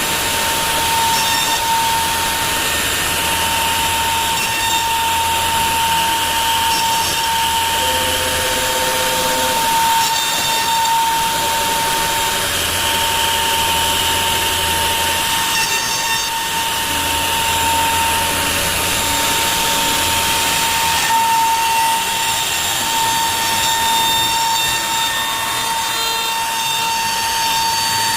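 CNC router spindle whining at a steady high pitch while its bit rough-cuts wood, clearing the bulk material, with a dense cutting noise.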